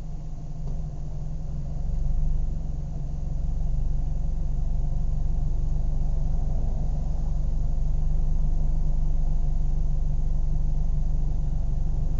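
Car engine running steadily at idle, a low rumble that grows louder about two seconds in and then holds even.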